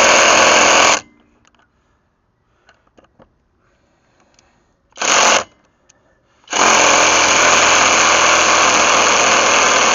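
VTEK V6309R cordless impact wrench hammering on an over-tight lug nut without breaking it loose. A burst cuts off about a second in, a brief blip comes around five seconds, and a long burst starts at about six and a half seconds. The wrench is working at its limit on lug nuts too tight for it.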